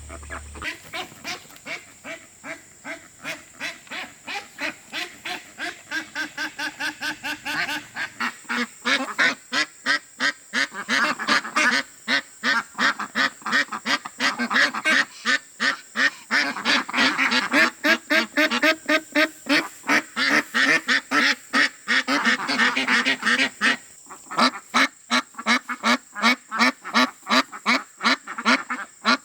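A flock of farm ducks quacking in quick repeated calls. The calls are sparse at first, build to many overlapping quacks after about eight seconds, and thin out again near the end.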